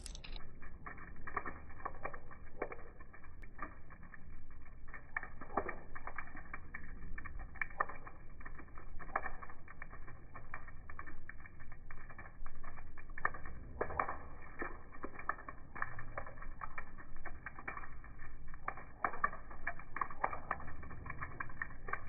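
Water drops splashing on a wet concrete ledge, heard slowed down and muffled: irregular soft pats, about one or two a second.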